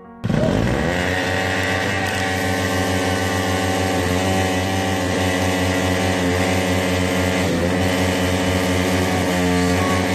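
Bajaj Pulsar NS200 motorcycle's single-cylinder engine running loudly through its exhaust. It cuts in suddenly with a quick falling rev and then holds a steady run, with small dips in pitch now and then.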